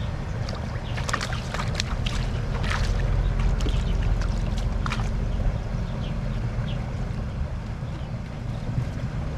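Steady low wind rumble on the microphone, with a run of short clicks and rustles over the first few seconds.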